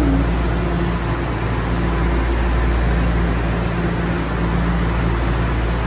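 Toronto Rocket subway car standing at a station with its doors open, its ventilation and electrical equipment humming steadily: a low drone with a few constant tones over it.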